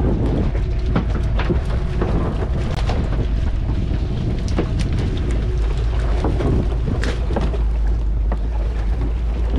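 Steady wind rumble on the microphone, with scattered knocks, taps and rattles as a fishing net full of small fish and plastic floats is hauled and shaken into a fibreglass boat.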